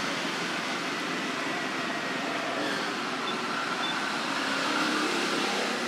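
Steady background noise with a faint droning hum.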